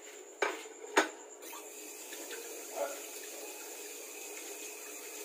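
Two sharp clicks, then a water tap running steadily, turned on suddenly and cut off near the end.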